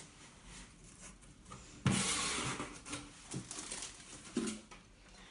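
Parcel packaging rustling and crinkling as it is handled and opened, in uneven bursts with a few light knocks, loudest about two seconds in.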